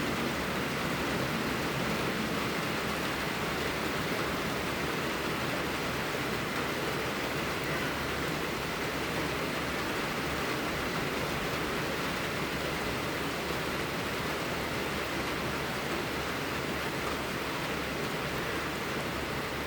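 Steady, even rushing noise of blizzard wind, part of a winter cabin ambience track.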